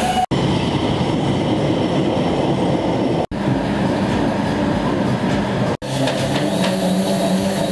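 Metro train at a platform: loud, steady running and rail noise, chopped by sudden cuts about a third of a second, three seconds and almost six seconds in.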